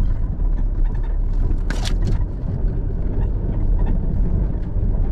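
A vehicle driving: steady low rumble of engine and road noise, with a short burst of hiss about two seconds in.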